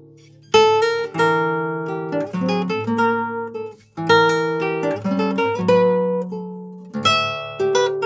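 Solo classical guitar in drop D tuning played fingerstyle: a ringing chord dies away, then phrases of plucked single notes and chords start about half a second in, again about four seconds in and about seven seconds in.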